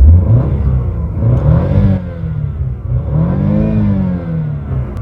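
Car engine revving, climbing and falling back twice.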